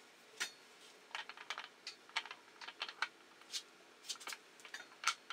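Light, irregular metal clicks and taps as the half-nut handle and its taper pin are fitted onto a cast-iron lathe apron, with a sharper tap near the end.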